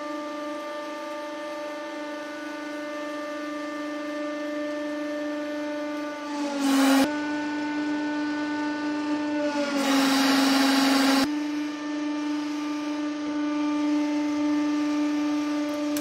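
Hydraulic press pump running with a steady, high-pitched whine. Its pitch sags slightly as the ram bears down, with a loud rush of noise about seven seconds in and again for about a second and a half from ten seconds.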